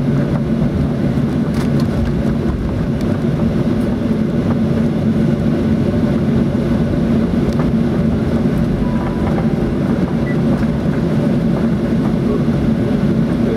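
Steady cabin rumble of a Boeing 737-800 taxiing after landing: its CFM56-7 engines at idle and the airframe rolling over the taxiway, heard from a window seat over the wing.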